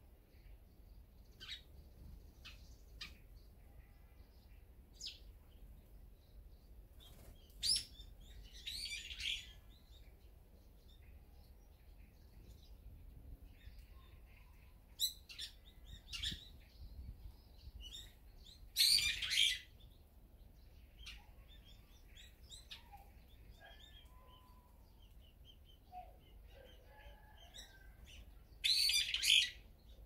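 Small wild songbirds chirping and calling in short, scattered notes. Louder harsh calls stand out three times, about ten seconds apart.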